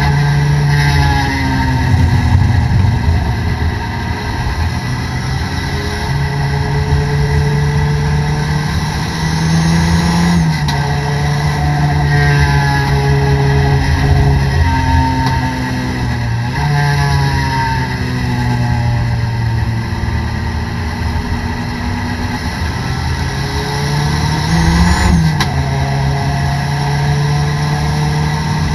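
In-car sound of a Toyota Corolla race car's four-cylinder engine running steadily at part throttle. The revs drop and pick up again about three times.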